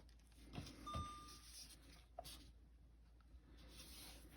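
Near silence with a few faint clicks and knocks from the camcorder being handled, and one short high beep about a second in as the Canon ZR50 MC camcorder is set to playback.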